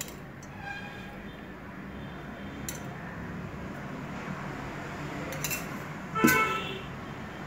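A metal spoon clinking against glassware a few times. The loudest clink, about six seconds in, rings briefly. A steady low hum runs underneath.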